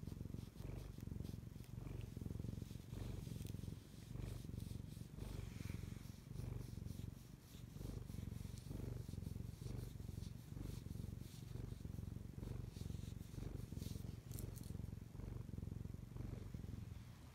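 Domestic cat purring, a low steady rumble.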